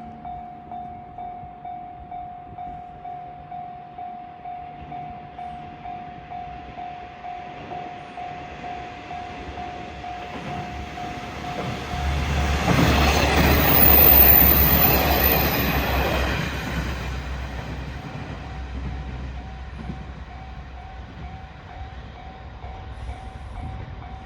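Level-crossing warning bell ringing steadily at about two strokes a second. About halfway through, a diesel train passes over the crossing: a rumble and clatter of wheels on the rails that swells to its loudest and covers the bell, then fades as the bell is heard again.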